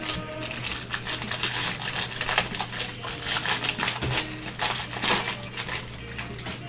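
Foil baseball-card pack wrapper crinkling and tearing as it is ripped open, a dense run of irregular crackles.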